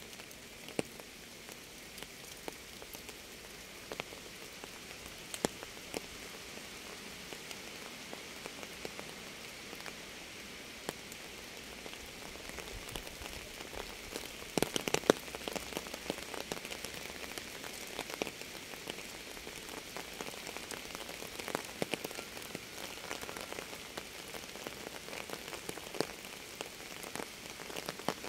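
Rain falling: an even hiss dotted with many close, individual drop impacts. A brief flurry of louder drops comes about halfway through.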